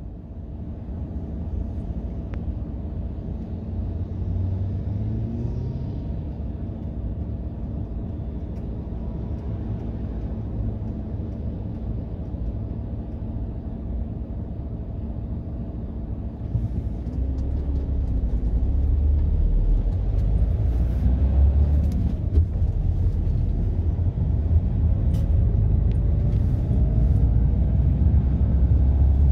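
Volkswagen T6 van's engine heard from inside the cab: a steady low idle at first, then from a little past halfway a louder, heavier rumble as the van drives off.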